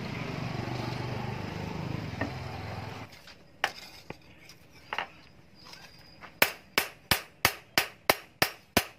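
A steady rushing, sizzling noise from the rebar sword blade held in a water trough, cut off about three seconds in. Then a blacksmith's hammer strikes the steel blade on a stake anvil: a few spaced blows, then a fast, even run of about three sharp strikes a second, the loudest sound here.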